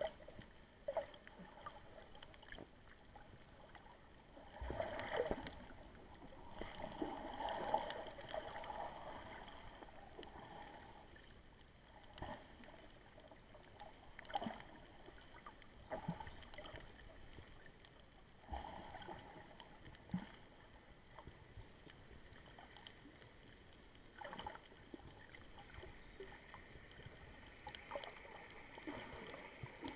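Muffled underwater sound from a camera held beneath the surface: faint water movement and bubbling that swells now and then, with scattered soft clicks and knocks.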